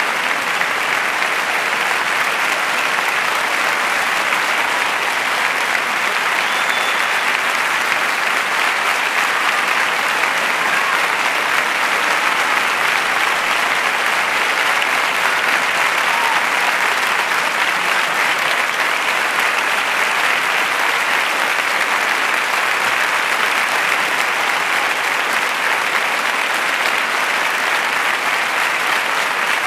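Large audience applauding steadily in a concert hall, an unbroken ovation with no break.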